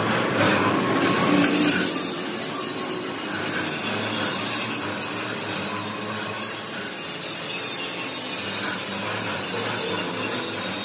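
Steady machine-shop hum with metal tool clatter as clamps are fitted by hand to a large cast-iron gear blank on a lathe. The noise is brighter and hissier for the first second or so, then settles.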